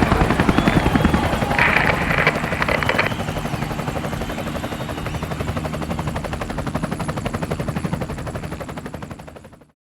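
Rapid, steady chopping of a helicopter's rotor, with a brief higher sound over it about two seconds in. It fades from about eight seconds in and then cuts off just before the end.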